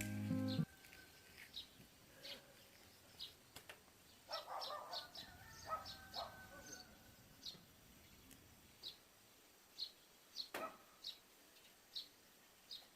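Faint, repeated short high chirps of a bird, roughly one every half second to a second, with a busier burst of chirping and lower notes about four to six seconds in. Background music cuts off just after the start.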